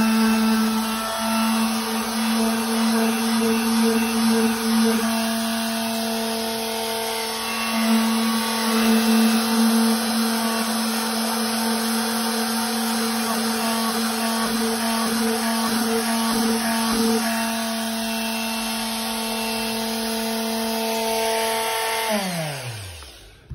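Electric random orbital sander running steadily with a loud hum while sanding the end of a pool table's rubber cushion to shape. Near the end it is switched off and winds down, falling in pitch.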